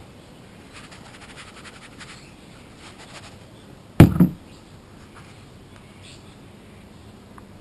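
A sharp double knock about four seconds in: a plastic gold pan bumping against the table top. It comes after faint rapid ticking.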